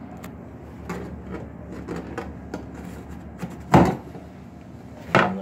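Clunks and knocks of gear and compartment covers being handled inside a lifeboat, with a loud knock a little under four seconds in and another near the end, over a steady low hum.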